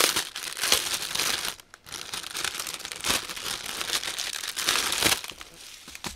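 Clear plastic packaging crinkling and crackling as the bagged drills of a diamond-painting kit are handled, with several loud crackles that ease off near the end.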